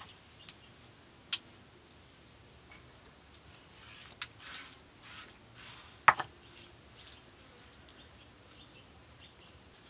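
A round stone pestle and fingers scraping crushed garlic paste together in a hollowed stone mortar. The scraping is soft, with a few sharp stone clicks, the loudest about six seconds in.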